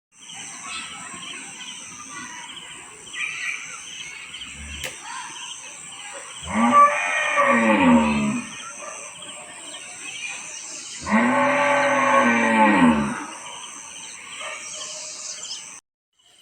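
A cow mooing twice, two long calls each lasting about one and a half to two seconds, a few seconds apart. A steady high-pitched insect buzz runs underneath.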